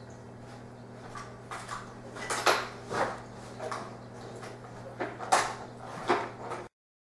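Scattered light clinks and knocks of small hard objects over a steady low hum, the loudest about two and a half, three and five and a half seconds in. The sound stops abruptly near the end.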